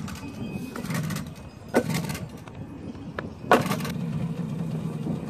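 Small engine of a yellow Suzuki 50 youth quad bike running at low idle, settling into a steady hum in the second half. Two short, loud bursts come about two seconds in and again about three and a half seconds in.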